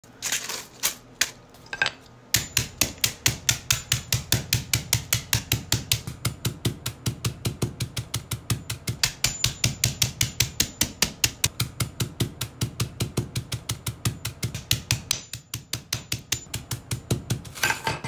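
Hammer pounding coffee beans: a few separate blows, then rapid, even strikes at about five a second, with a short break about fifteen seconds in.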